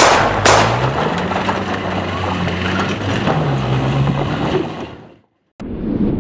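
Pickup truck pulling away hard on a gravel road: the tyres spin and crunch over loose stones while the engine pitch rises and falls. The sound fades away about five seconds in, and after a brief gap a separate short sound begins.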